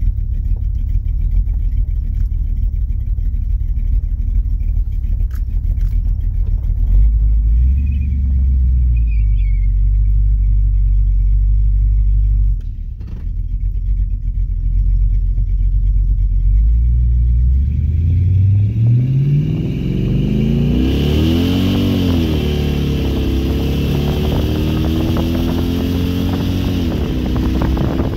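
Cammed, carbureted Chevy 350 Vortec V8 with dual Flowmaster Super 10 mufflers, heard from inside the pickup's cab. It rumbles low and steady at first, then about two-thirds of the way in goes to full-throttle acceleration, rising steeply in pitch and dropping back twice as the automatic gearbox shifts up. Wind noise grows as speed climbs.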